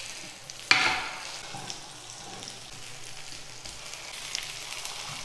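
Potato tikkis sizzling in oil on an iron tawa over a low flame while a steel spatula loosens and turns them. About a second in, a sudden louder burst of sizzle and scrape fades over half a second, and there are a few light spatula clicks on the pan later on.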